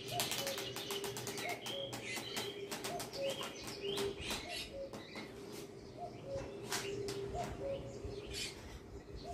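Recorded birdsong from a nature demo video playing through a VU 4K LED TV's speakers: busy chirping and tweeting with a low two-note call that recurs every second or so.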